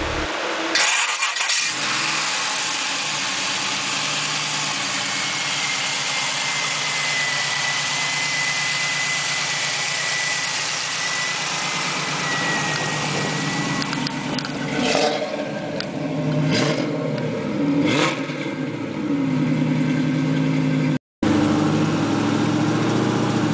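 Fuel-injected LS6 V8 breathing through headers and a Flowmaster exhaust starts about a second in and settles into a steady idle. Near the end it is blipped three times in quick succession, then it runs on steadily after a brief cutout.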